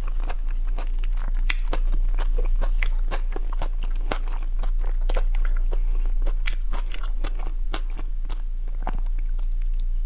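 Close-miked chewing of raw shrimp: wet crunching and clicking bites in an irregular run, thinning out near the end, over a steady low hum.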